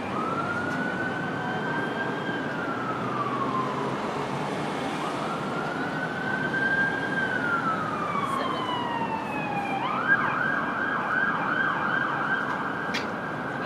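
Emergency vehicle siren in a slow wail, rising and falling twice, then switching to a fast yelp about ten seconds in, over the steady hum of city traffic. A single sharp click sounds near the end.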